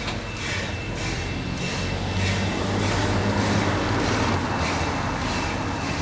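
Exhaust of the 1927 Vulcan 0-4-0T saddle-tank steam locomotive Jeddo Coal 85, chuffing evenly about twice a second. A low rumble under the chuffs grows louder through the middle.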